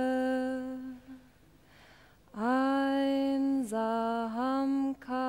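A woman singing slow, long-held notes in a plain, chant-like line, each note held for a second or more with small steps in pitch. The singing breaks off about a second in and resumes a little over a second later.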